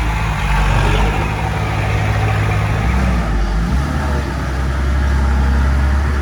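Heavy diesel engine of earthmoving machinery running under load. About four seconds in, its note drops lower and gets heavier.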